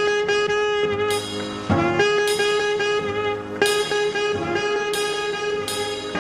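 Instrumental background music: long held lead notes over occasional drum hits.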